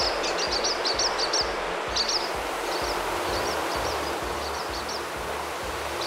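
Large flock of starlings in a murmuration: rapid high chirps and twitters over a steady rushing noise from the flock, the chirps thickest in the first two seconds and sparser after.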